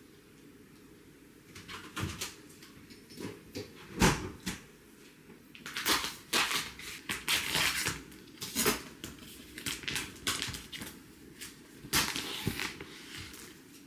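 Kitchen handling noises: scattered clicks and knocks with one sharp knock about four seconds in, then a denser run of rustling and clattering as things are handled and set down.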